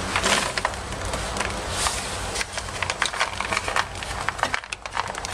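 Rustling with many light clicks and knocks as mini marshmallows are handled and tipped into the chocolate and biscuit mixture, over a low steady hum.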